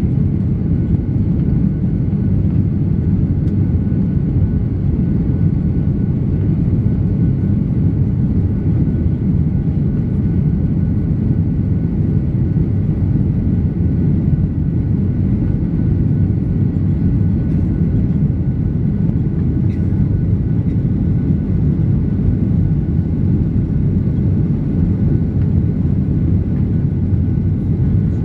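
Boeing 737-800 cabin noise in flight after takeoff: a steady low rumble of the CFM56-7B engines and airflow, with a faint steady whine above it.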